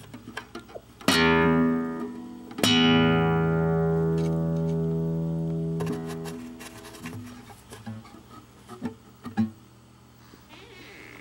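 An acoustic guitar's open strings are swept twice by a kitten's paw, about a second and a half apart, each chord ringing out and slowly fading. Then come a few light plucks and taps on the strings.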